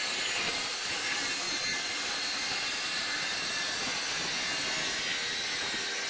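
Circular saw running steadily as its blade cuts through a sheet of aluminium treadplate, a continuous harsh noise with a high whine in it.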